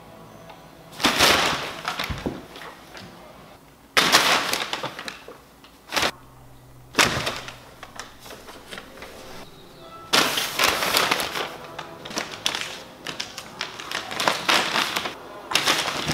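Crumpled brown kraft paper crackling and rustling as cats and kittens pounce on it and dash through and under it. The sound comes in repeated bursts of a second or two, with a quieter stretch in the middle.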